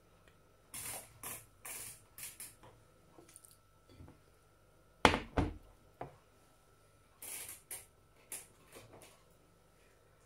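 Short scrapes and knocks of utensils at a stovetop pan, in two clusters, with one louder clack about five seconds in.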